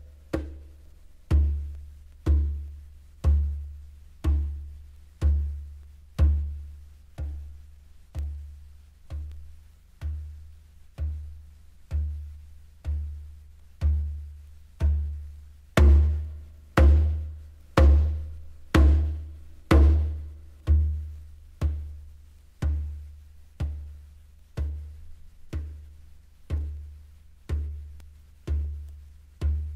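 Music made of a slow, steady beat of deep drum strokes, about one a second, each with a sharp click on top and a short decay. The strokes grow louder for a few seconds around the middle, then ease back.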